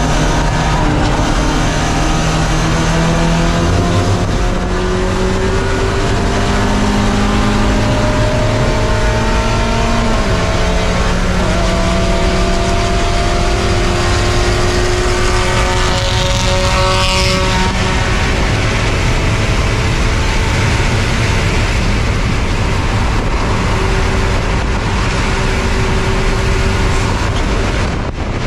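Spec Miata race car's four-cylinder engine at racing speed, its pitch climbing through the revs and dropping back at each gear change, over a steady rush of wind and tyre noise. About two-thirds of the way through, a brief high whine sweeps down in pitch.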